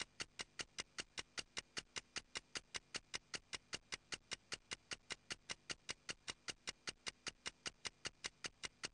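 A clock ticking quickly and evenly, about five faint ticks a second.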